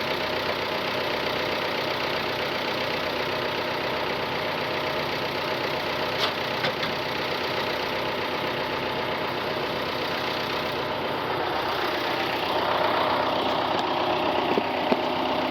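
Engine of the machine towing a dead skid steer, running steadily, fuller and louder from about twelve seconds in. A few short knocks come around the middle and near the end.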